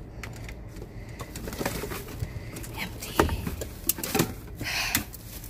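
Cardboard boxes and plastic wrap being shifted about inside a metal dumpster: scattered knocks and thuds in the second half, with a crinkling rustle near the end.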